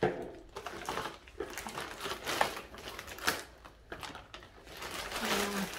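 Plastic packaging crinkling and rustling in irregular bursts, with scattered clicks, as small items are handled and unwrapped.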